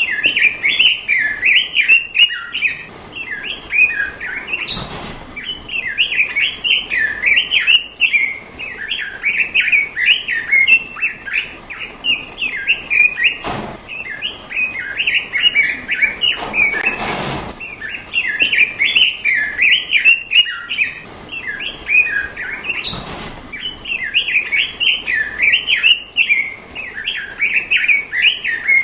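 Straw-headed bulbul (cucak rawa) singing a continuous stream of rapid, bubbling chirps and warbles, with only brief pauses between phrases. A few short rustling noises are heard along the way.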